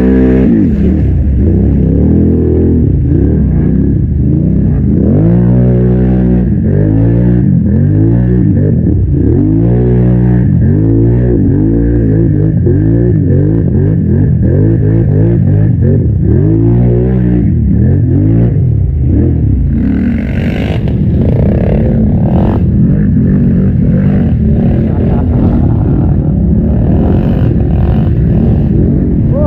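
Quad bike (ATV) engine revving hard again and again as it ploughs through a mud hole, its pitch climbing and dropping about once a second; after about eighteen seconds it runs steadier under a noisier wash of sound.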